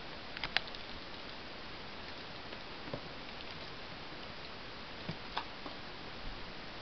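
A few light, scattered clicks and taps over a steady low hiss: kittens' paws and claws shifting on a hard plastic storage box lid.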